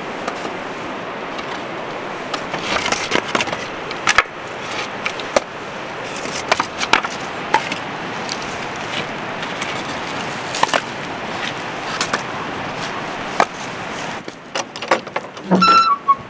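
Pieces of split firewood knocking and clattering against each other as they are pulled from a woodpile and stacked in the arms, over a steady background noise. Near the end a wooden door opens with a short creak of its hinge.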